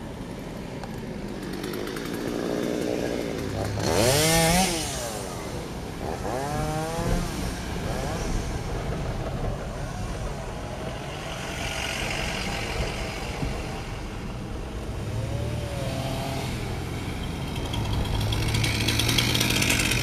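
Chainsaws revving in rising and falling bursts, cutting up wind-downed trees, heard from inside a moving car over steady road noise. There is a loud burst about four seconds in, and oncoming traffic hisses past.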